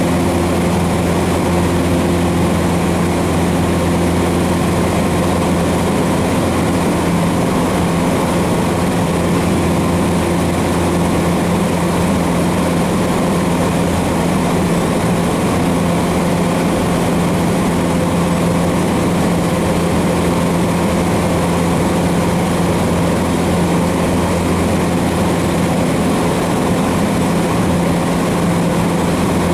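Cessna 150's four-cylinder Continental O-200 engine and propeller running steadily in flight, heard inside the cabin as an even, unbroken drone with airflow noise.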